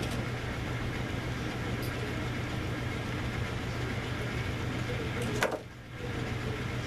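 Steady motor hum from grooming-room equipment. About five and a half seconds in there is a single sharp bump or rub, then the level dips briefly.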